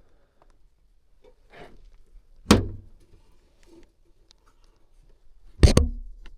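Two sharp knocks about three seconds apart, with faint rustling and small ticks from handling between them.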